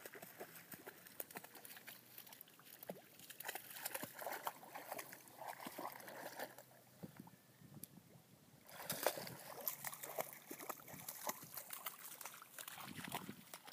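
A dog wading and splashing through shallow pond water, with irregular splashes and sloshing. The splashing drops away for a couple of seconds past the middle, then picks up louder again.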